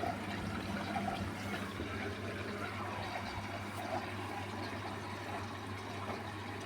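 Beko washing machine in its service-mode drain test: the drain pump runs with a low steady hum while water fills at the same time, giving a continuous rushing of water.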